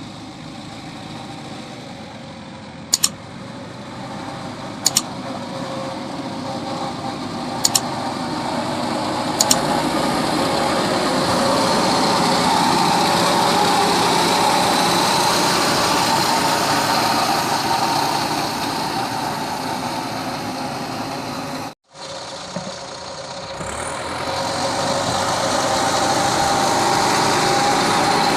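Mahindra Earth Master SX90 backhoe loader's diesel engine running, growing louder over the first dozen seconds. Four sharp clicks or clanks come in the first ten seconds. The sound cuts out briefly about 22 seconds in, then builds up again.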